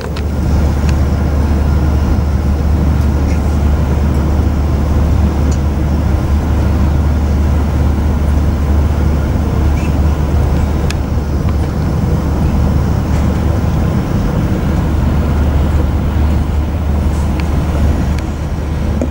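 Passenger train running at speed, heard from inside: a steady low rumble with a few faint clicks and knocks.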